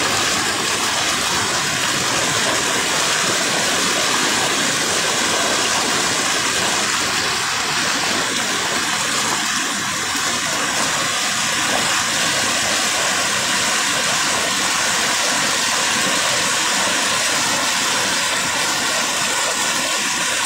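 Floodwater flowing over a path: a continuous, even rush of moving water that holds steady throughout.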